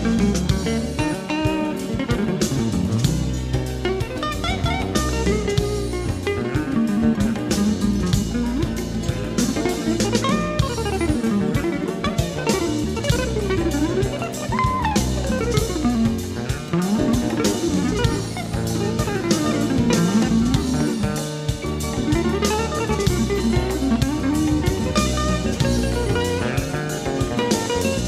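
Live band playing instrumental jazz: quick guitar runs climbing and falling over a drum kit and a steady bass line. It is a live concert taken off an FM radio broadcast and played back from cassette tape.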